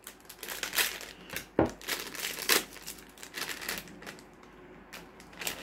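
A biscuit's plastic wrapper crinkling in the hands as it is opened: irregular crackles that thin out after about four seconds.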